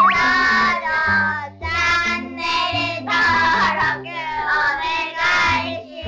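Cheerful jingle: a high, childlike voice sings short phrases over music with a bouncing bass line.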